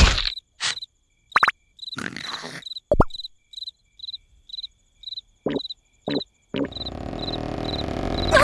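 Crickets chirping in a regular rhythm, several short chirps a second, as a night-time sound effect in a cartoon soundtrack. A few short sudden comic sound effects cut in during the first two thirds, and a louder steady rumbling noise starts about two thirds in.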